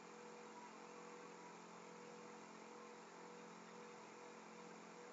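Near silence: a faint, steady background hum.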